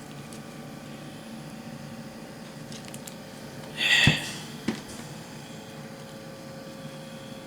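Steady room hum. About four seconds in, a brief rustle or scrape ends in a sharp knock, and a lighter tap follows about half a second later.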